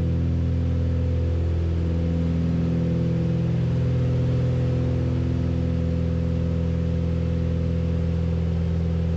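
Cabin drone of a Beechcraft Baron B55's twin piston engines and propellers in flight, a steady low hum made of several even tones under an airy hiss.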